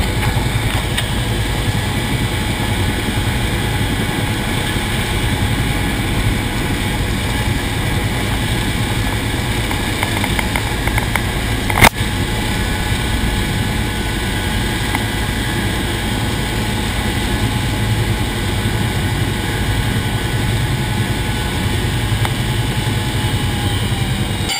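AH-1 Cobra helicopter's turboshaft engine and rotor heard from inside the cockpit as a loud, steady drone. A single sharp click comes about halfway through.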